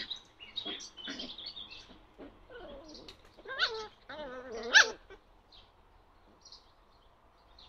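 Puppies yelping and whining as they play-fight: a string of short, high-pitched cries that bend in pitch, the loudest a little before five seconds in, then quieter.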